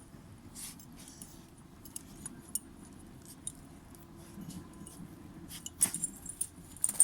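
A pet digging: light scratching and rustling with scattered small clicks, and a few sharper clicks near the end.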